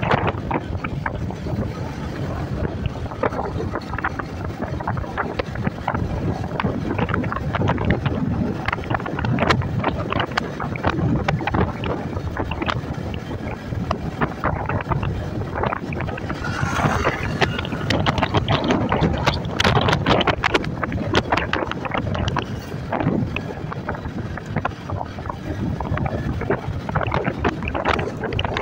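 Wind buffeting the microphone of a moving Yamaha scooter, with the scooter's engine and tyre noise underneath.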